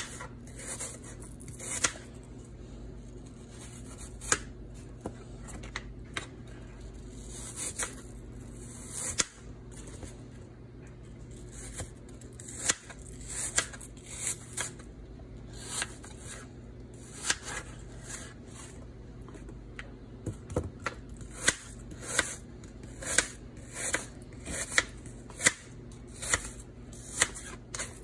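Kitchen knife slicing peeled Granny Smith apple on a plastic cutting board: a string of irregular knocks as the blade cuts through and taps the board, coming faster in the second half.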